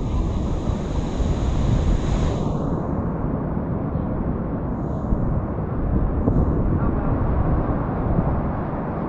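Wind rumbling on a GoPro Hero8's microphone, with a high hiss that fades out about two and a half seconds in.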